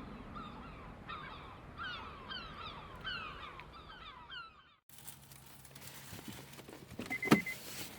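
Gulls calling, a string of short falling cries, until the sound cuts off abruptly about five seconds in. After that, a steady outdoor hiss, with a sharp knock and a short run of high beeps near the end.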